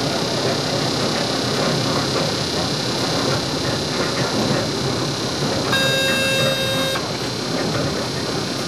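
Steady running noise inside the cab of a class 362 electric locomotive under way. A little past halfway, a single high electronic beep sounds for about a second.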